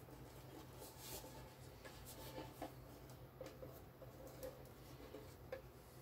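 Near silence: a low steady room hum with faint rubbing and light clicks as a violin is handled and turned over in the hands.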